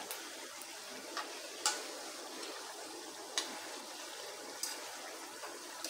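A metal fork clicking and scraping against a nonstick karahi as it picks the skins off softened tomatoes in oil: a handful of light, irregular clicks over a faint steady hiss.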